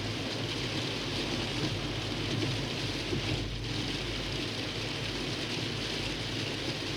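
Steady road and tyre noise heard inside a moving car on slushy, snow-covered roads: a low rumble with an even hiss of slush spray.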